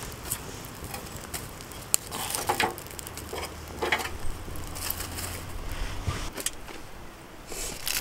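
Small fire of twigs and dry leaves crackling in a metal fire stand, with irregular snaps and rustles as twigs are fed in and handled. A low steady hum sits underneath until about six seconds in.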